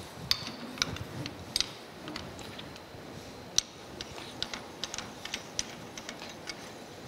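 Eight-inch Cushman four-jaw lathe chuck having a jaw screwed in with its chuck key: irregular light metallic clicks of steel on steel, one sharper click about halfway through.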